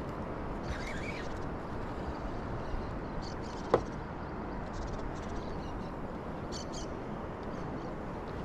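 Steady open-air wind and water noise on a river, with faint high chirps now and then and one sharp click a little under four seconds in.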